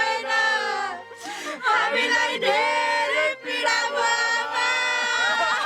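Several voices singing a song together, holding long notes, with a short break about a second in.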